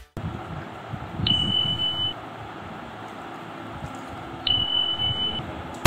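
Two high, steady electronic beeps, each just under a second long and about three seconds apart. Beneath them is a low bed of room noise with small soft knocks.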